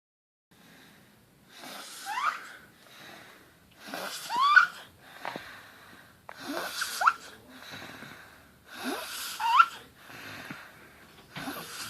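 A sleeping woman snoring, each breath carrying a squeaky whistle that rises in pitch, repeating about every two and a half seconds.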